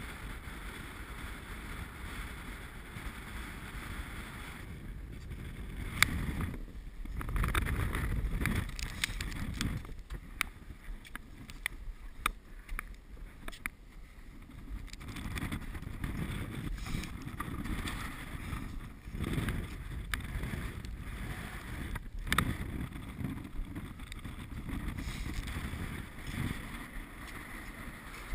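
Wind buffeting the camera's microphone with a low rumble, broken by scattered knocks, scrapes and crunches as a climber moves hands and feet over snow and rock; the sharpest knock comes about six seconds in, another a little past twenty seconds.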